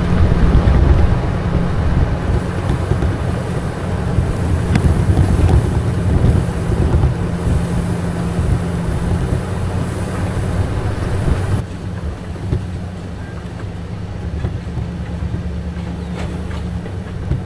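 Vehicle engine running at steady speed while driving, a loud low hum with wind noise over it; the level drops about twelve seconds in.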